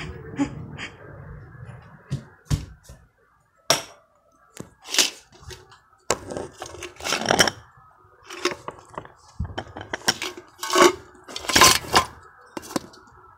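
Irregular knocks, scrapes and rustles of a phone being handled and moved about, several sharp bumps among them.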